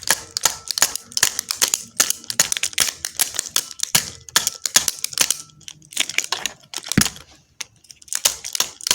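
Irregular sharp clicks and taps of hard objects being handled, about three or four a second, with a louder knock about seven seconds in.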